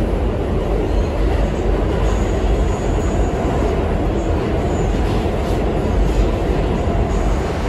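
Steady, loud running rumble of an R68 subway car in motion, heard from inside the car: wheels on rail and running gear.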